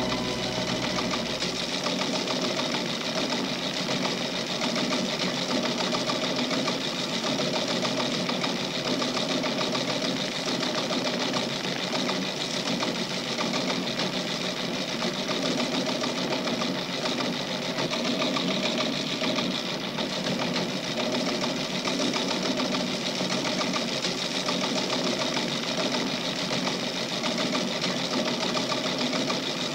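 Teleprinter clattering rapidly and steadily.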